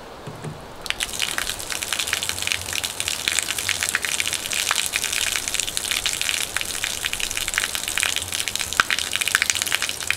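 Water gushing from the freshly opened PVC spigot of a full 55-gallon plastic barrel and splashing onto concrete. It starts suddenly about a second in and runs steadily after that.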